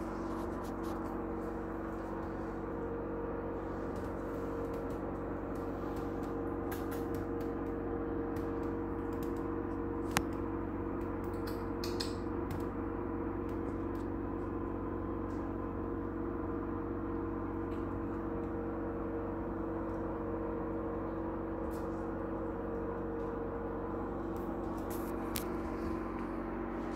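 A steady hum with several held tones, even in level throughout, with scattered faint ticks and one sharp click about ten seconds in.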